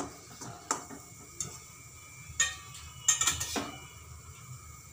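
Steel spatula scraping and knocking against a metal kadhai while stirring thick, grainy besan halwa. There are a few separate scrapes, with the loudest cluster about three seconds in.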